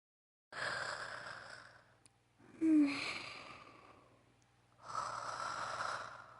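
A female voice actor's performed snoring for an anime character: three slow, breathy snore breaths, each about a second and a half long. The second begins with a short snort that drops in pitch.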